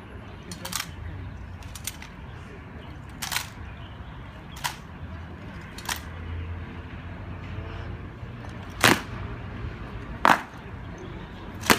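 Sharp, separate cracks from a military honor guard's drill, rifles struck and boots stamped on stone paving. There are about eight over the stretch, irregularly spaced, and the last three are the loudest, with a low crowd murmur underneath.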